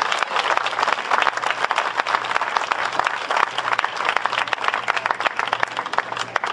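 Small audience applauding, many hands clapping, thinning out near the end.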